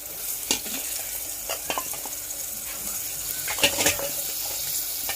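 Goat trotter pieces sizzling as they fry in a pot, stirred with a spoon that clinks against the pot a few times, loudest a little past halfway.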